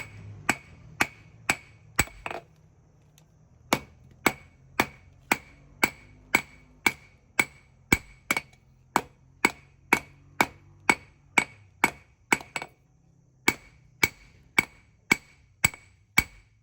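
Hand hammer striking hot spring steel on an anvil at a steady pace of about two blows a second, each blow ringing, to draw out the point of a small knife blade. The hammering pauses briefly twice, and a faint low hum runs underneath.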